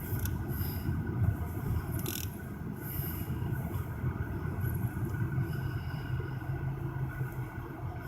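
Steady low rumble of a vehicle's engine and road noise heard from inside the cabin in slow highway traffic, with a few brief light clicks about two and three seconds in.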